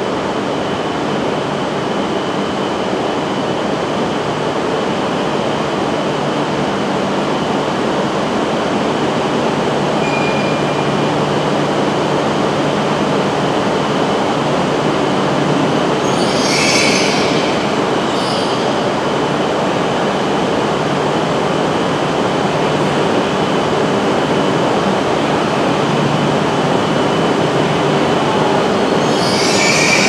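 E6 series Akita Shinkansen Komachi train running slowly along the platform toward the waiting E5 for coupling: a steady rumble and hum. A brief high-pitched burst of noise comes about halfway through and again near the end.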